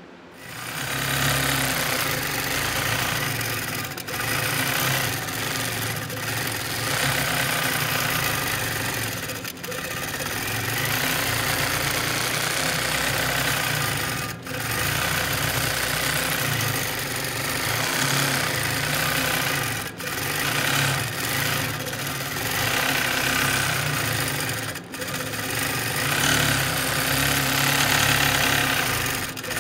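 Longarm quilting machine stitching, its motor and needle running steadily, with brief breaks about every five seconds.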